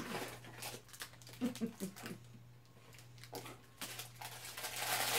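Faint rustling and light knocks of a small cardboard box being opened by hand and a mug slid out of it, with a brief low murmur about one and a half seconds in and a steady low electrical hum underneath.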